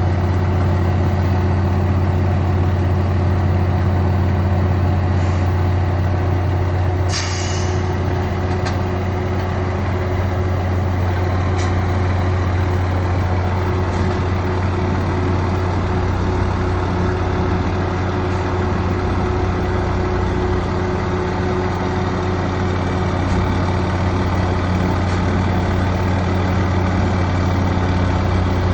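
Fire department tower ladder truck's diesel engine running steadily at low revs, with a short hiss of released air about seven seconds in, typical of the truck's air brakes.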